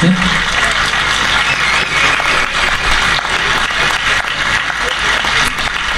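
Crowd applauding, a dense steady clapping that fills the pause in the speech.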